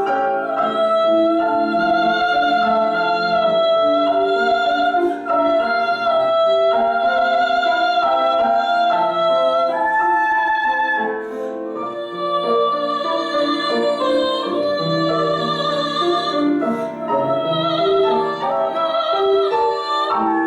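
Classical art-song music: a high melody in long held notes with vibrato over piano accompaniment.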